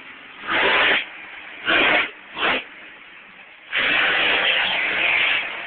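Monster truck supercharged V8 engines revved in bursts while the trucks churn through deep mud: three short blasts of throttle, then a longer one of nearly two seconds in the second half.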